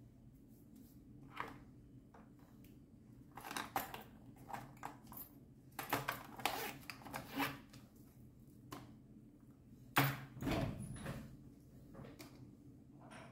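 Small objects being handled by hand: a scatter of clicks, rustles and light knocks, then one heavier knock with a dull thud about ten seconds in, over a faint steady room hum.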